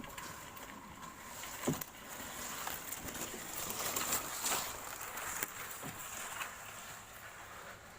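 Outdoor ambience: a steady hiss with a few soft knocks, the clearest one a little under two seconds in.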